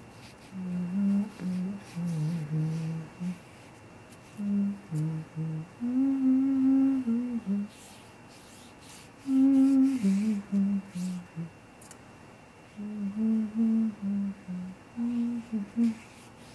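A person humming a slow wordless tune in a low voice, short held notes stepping up and down, with brief pauses between phrases.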